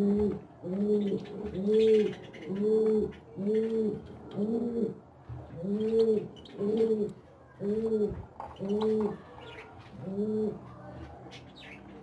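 A dove cooing: a regular series of short coos that rise and fall, about one a second, with a brief pause midway, stopping shortly before the end. Faint chirps of small birds sound over it.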